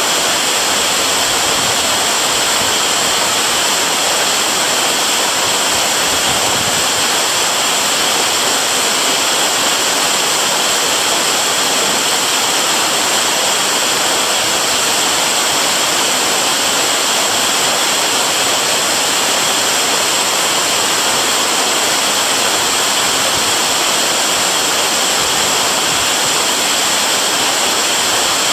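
Waterfall: falling water making a loud, steady rush that does not let up.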